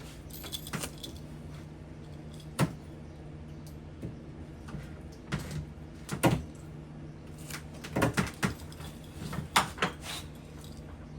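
Scattered knocks, clicks and clinks of tools and a door being handled during repair work, over a steady low hum.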